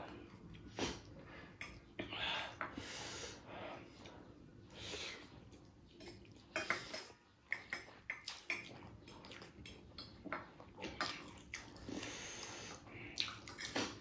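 Utensils clinking and scraping against plates and bowls during a meal, with eating noises between the clicks.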